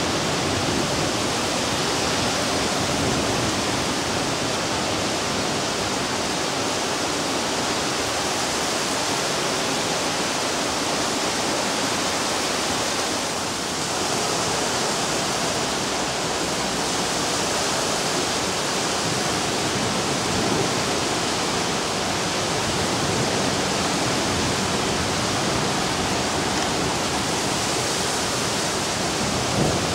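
Heavy rain mixed with small hail pouring down onto roofs and ground: a steady, dense hiss that does not let up.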